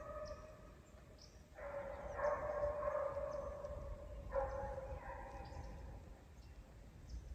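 Hunting dogs baying in three long, drawn-out cries, one after another: the pack is running a group of deer it has just jumped.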